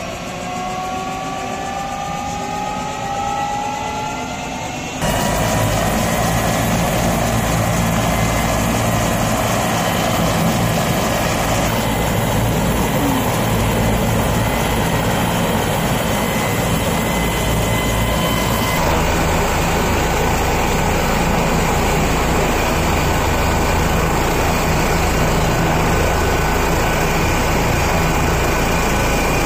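Helicopter on the ground starting up: its turbine whine climbs in pitch over the first few seconds. About five seconds in the sound turns suddenly louder into a steady turbine whine over the low beat of the turning rotors.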